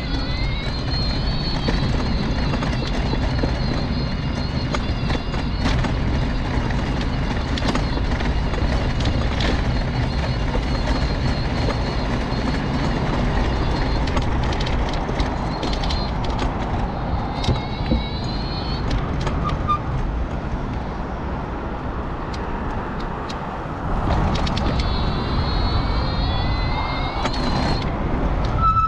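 Mobility scooter on the move: its electric drive motor whines high over the rumble of its wheels on the paving slabs. The whine dies away for a few seconds past the middle, then climbs in pitch again near the end as the scooter picks up speed.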